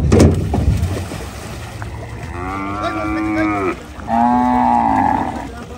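Cow mooing twice in long calls, about two and a half and four seconds in. A loud knock comes right at the start.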